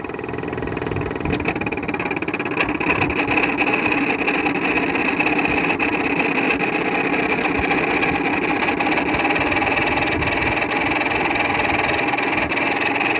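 Whirlpool window air conditioner running on its fan and compressor, a high steady whine over a lower hum, growing a little louder over the first couple of seconds. The noise comes from worn fan-motor bearings; with good bearings the unit would be nearly silent.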